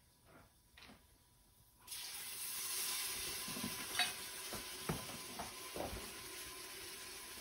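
Wine poured into a hot saucepan of sautéed Arborio rice and onions sets off a sudden sizzle about two seconds in, the hiss slowly fading. A spoon stirring the rice knocks and scrapes against the pot a few times.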